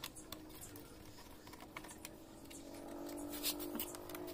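Scattered light clicks and taps as a plastic fairing fastener on a Yamaha R15 V3 is worked loose by hand. From about halfway a steady hum comes up underneath and grows louder.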